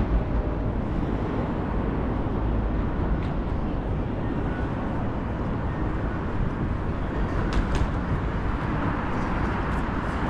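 Steady city street ambience at night: road traffic noise with a low rumble, and a few short clicks about three quarters of the way through.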